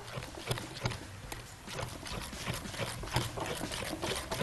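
Thick flour-and-water batter being stirred in a glass bowl: soft wet squelches with many small irregular clicks. The batter is being worked to a thick cake-batter consistency.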